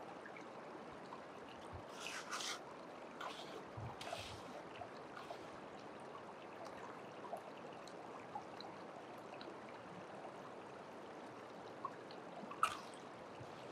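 Creek water running steadily through a gold-prospecting sluice box. Scoopfuls of gravel concentrate are tipped onto it, heard as a few brief louder bursts about two seconds in, around four seconds and near the end.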